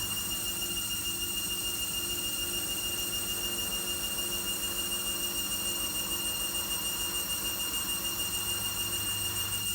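Logik L712WM23 washing machine running a cycle: a steady high whine with a quick, regular pulsing throughout.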